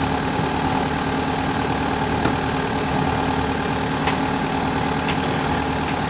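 A sailing yacht's inboard engine running steadily as the boat is manoeuvred under power for a stern-to mooring approach.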